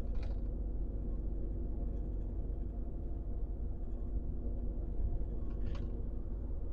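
Truck engine running steadily with road rumble, heard from inside the cab while driving. A brief high-pitched noise comes about six seconds in.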